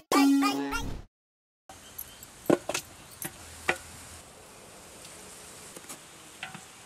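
Intro music with a voice cuts off abruptly about a second in. After a brief dead gap comes a steady faint background hiss with light insect buzzing and a few sharp clicks and knocks.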